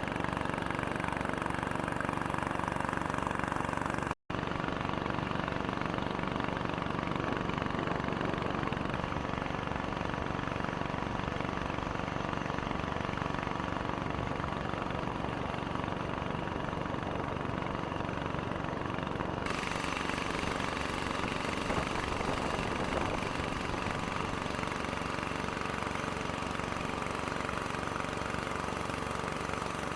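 Boat engine running steadily at an even pace; the sound drops out for an instant about four seconds in.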